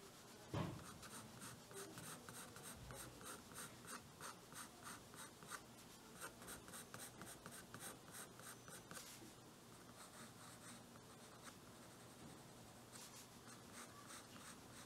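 Faint scratching of a graphite drawing pencil on paper in quick, regular shading strokes, about three a second, easing off for a few seconds past the middle and starting again near the end. A single soft bump about half a second in is the loudest sound.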